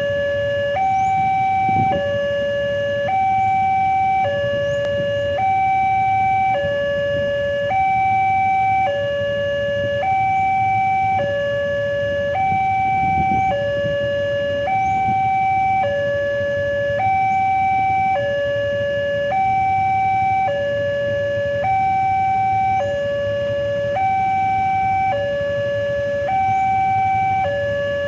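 Railway level-crossing warning alarm sounding a steady two-tone electronic signal, alternating between a lower and a higher pitch about every second. It keeps repeating, warning that a train is approaching and the crossing gates are closing.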